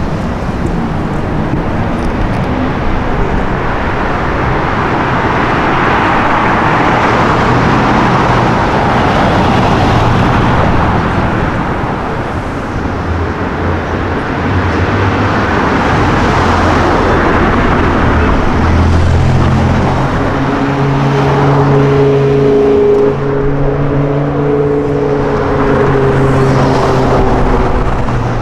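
Car engines and traffic noise on a city street, swelling and fading as cars drive by. From about two-thirds of the way through, one engine holds a steady, clearly pitched note for several seconds.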